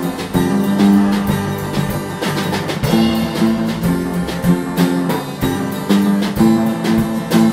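Background music: plucked guitar over a steady drum beat.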